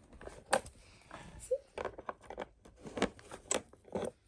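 Toy doorbell house's door lock being worked with its number key: irregular small clicks and knocks of the key and lock parts being handled and turned.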